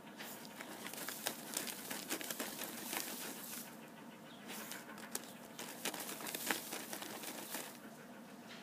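A dog digging with its front paws in dry earth and dry grass: irregular scratching and crackling scrapes, with a few sharper ones.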